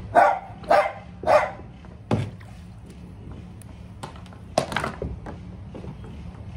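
A dog barking: a quick run of short barks in the first two seconds, then another bark or two a few seconds later.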